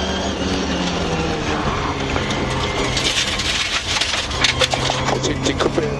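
Ford Escort RS2000 Mk2 rally car's four-cylinder engine heard from inside the cabin, its note dropping as the car slows from about 100 to 65 km/h under braking. In the second half a rapid, irregular run of sharp cracks and clicks comes in over the engine.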